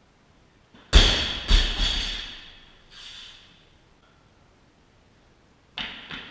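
Barbell loaded with rubber bumper plates dropped from overhead onto a lifting platform: a heavy thud about a second in, a second hit as it bounces, then a rattle of the bar and plates settling near three seconds. Two lighter knocks near the end.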